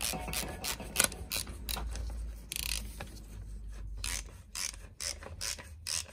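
Ratchet wrench clicking in short quick strokes, about three a second, as a socket drives the oil filter cap home on a 250 cc ATV engine's crankcase.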